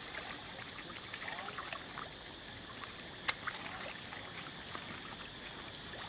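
Water lapping and light splashing as several monkeys swim and paddle about in a pool, with one sharp click about three seconds in.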